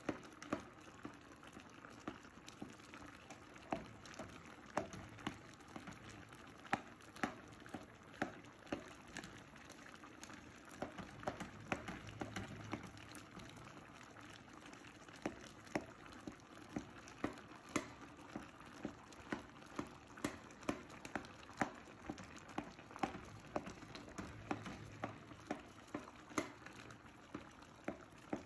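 Unripe plantain pottage simmering in an aluminium pot, the thick liquid bubbling with frequent sharp pops, about two a second, while a silicone spatula stirs through it.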